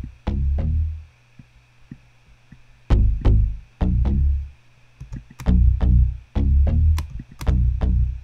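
Bass line playing on its own, run through Logic Pro's Pedalboard Squash Compressor: phrases of short plucked low notes that die away quickly, with a pause of about two seconds shortly after the start.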